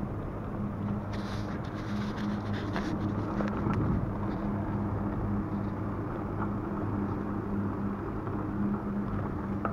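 Raleigh Redux bicycle rolling along asphalt: steady tyre and wind noise with a low hum that comes and goes, and a few light clicks in the first few seconds.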